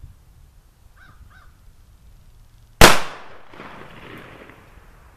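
A single shot from a 12-gauge Rock Island Armory VR60 semi-automatic shotgun firing a number 8 birdshot dove load, about three seconds in. A rolling echo follows and dies away over a second or so.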